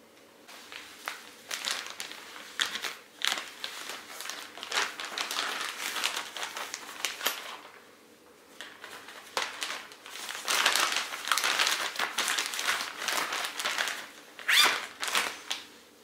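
Plastic zipper bag crinkling and rustling as a water bottle is slid into it and the bag is handled. It goes quiet briefly about halfway, gets louder from about ten seconds in, and ends with a sharp crackle near the end.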